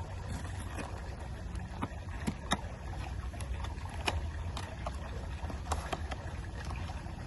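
Blind-box packaging being handled and torn open: scattered sharp crinkles and clicks over a steady low rumble.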